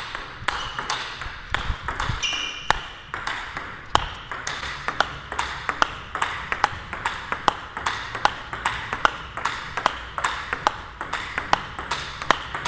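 Table tennis topspin rally: the ball clicks off the rackets and the table in a steady back-and-forth rhythm, about three hits a second. A brief high squeak comes about two seconds in.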